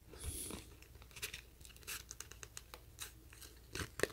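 Soft rustling of a clear plastic waterproof phone pouch being handled, with scattered small clicks and a sharper click near the end.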